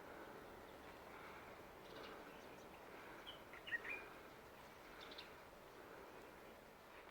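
Faint outdoor ambience with a few short, high bird chirps, the loudest a little under four seconds in.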